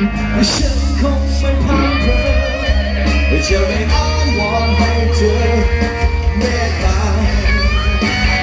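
Live rock band playing an instrumental break, with an electric guitar lead line over bass and drums.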